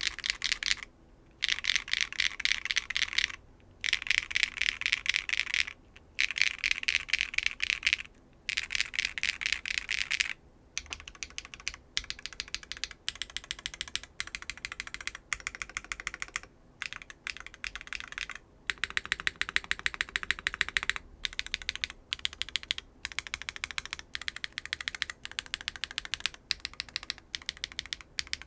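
Mechanical keyboard with Keygeek B1 linear switches (nylon-fiberglass bottom housings, POM stems) in a foamless Neo 75 with a carbon fiber plate and GMK keycaps, typed on in quick bursts with short pauses. The keystrokes are sharp and extremely clacky. The runs are dense over the first ten seconds, then thinner, with more separate strokes.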